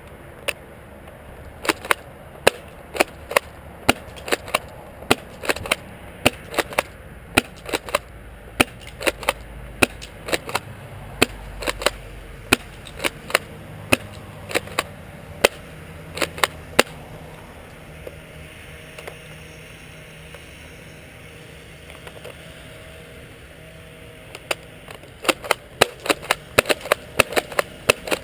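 Airsoft pump-action shotgun being fired and cycled over and over: a fast string of sharp snaps and clacks, often in close pairs. They stop for several seconds past the middle, then come again in a second quick string.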